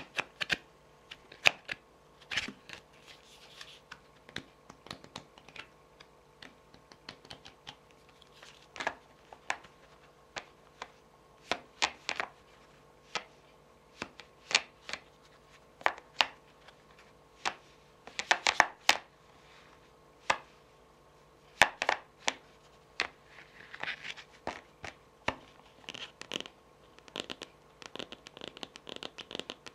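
Long fingernails tapping and scratching on tarot cards, with the cards being handled: irregular sharp taps, a quick cluster of them just over halfway through, and a longer stretch of scratching near the end.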